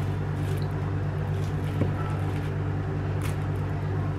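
A steady low mechanical hum, with a few faint soft ticks and squishes as a kitchen knife presses down through sticky, chewy steamed tapioca layer cake on a plastic sheet.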